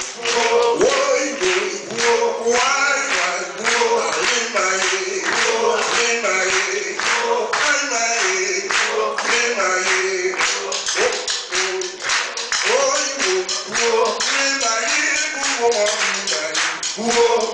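Live band music: voices singing over rhythmic hand-clapping and drumming.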